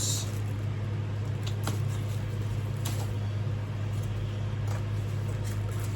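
A steady low hum throughout, with a few light clicks and rustles from boxed ceiling-fan parts being handled.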